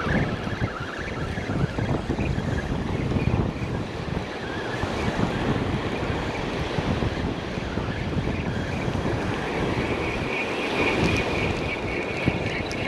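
Surf washing up the beach, with wind rumbling on the microphone. Near the end, a spinning fishing reel is cranked, a light steady whir over the surf.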